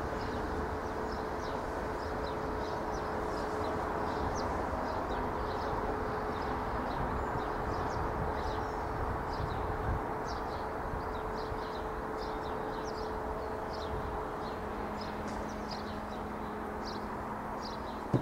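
Irish Rail 8100 class DART electric multiple unit running away into the distance, a steady rumble with a constant hum that slowly fades. Small birds chirp throughout, and a single sharp click comes near the end.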